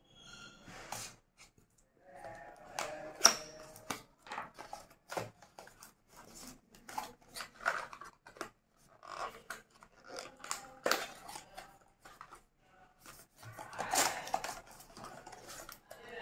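Cardboard retail box being opened by hand: a small blade slitting the seal at the flap, then the flaps pulled open and the sleeve handled. Irregular scraping, rustling and sharp clicks and snaps of card.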